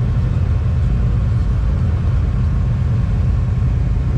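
Side-by-side UTV engines idling, a steady low rumble.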